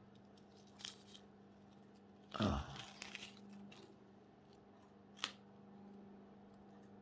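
Small plastic zip bag of resin diamond painting drills being handled: a few light clicks and rustles as the drills shift in the bag, with one louder crinkle about two and a half seconds in, over a faint steady hum.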